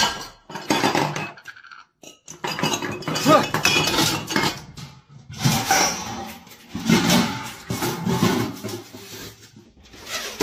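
Metal wok and its lid clattering and scraping again and again as a cat scrambles about inside the wok and knocks the lid.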